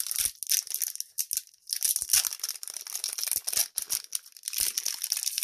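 Crinkling and tearing of a trading-card booster pack wrapper being handled and opened, in three spells of crackling with short pauses between.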